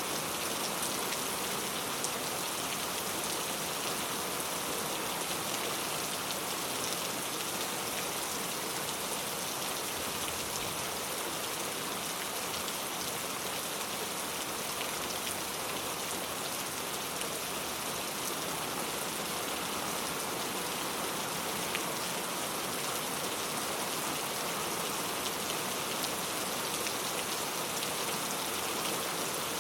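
Heavy rain falling steadily: a dense, even hiss of rain with scattered individual drop ticks.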